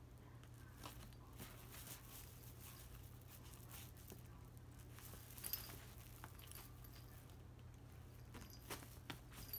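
Faint rustling and scuffling of a kitten wriggling inside a fabric tote bag, with a few small sharper crinkles, the loudest about five and a half seconds in. A low steady hum sits underneath.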